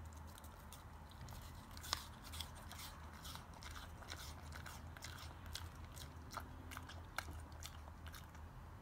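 A Samoyed crunching and chewing a slice of raw apple: a quick, irregular run of crisp crunches, loudest about two seconds in.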